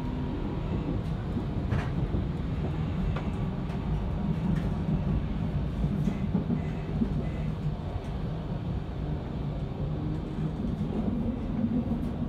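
Berlin U-Bahn IK18 train running along the track, heard from inside the car: a steady low rumble of wheels and running gear, with a few faint clicks.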